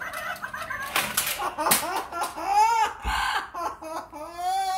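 Amazon parrot imitating laughter: a string of short, arched 'ha' calls that rise and fall in pitch, the bird's gloating mock laugh. A brief low thump comes about three seconds in.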